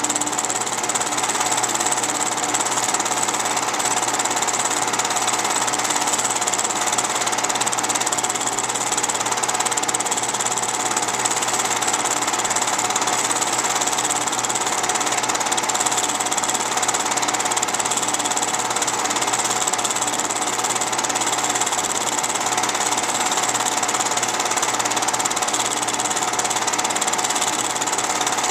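Film projector running, a steady mechanical clatter with no change through the whole stretch.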